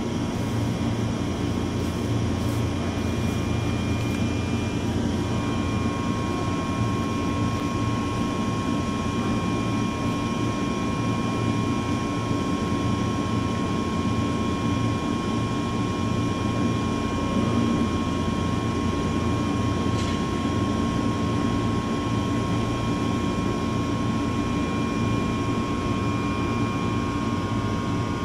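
Steady hum and whine of an electric train's equipment, with constant high tones over a low drone. The higher whine grows a little stronger about five seconds in.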